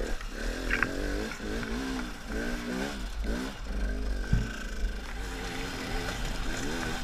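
KTM two-stroke enduro motorcycle engine revving up and down again and again as the throttle is opened and closed on a rough rocky trail. A couple of short knocks from the bike over the ground, about a second in and past the middle.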